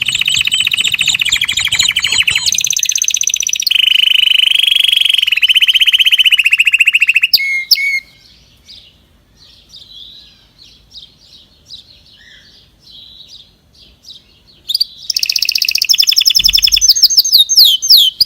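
Birds singing: loud, rapid, high-pitched trills that break off about seven seconds in, leaving quieter scattered chirps, then start up again about fifteen seconds in.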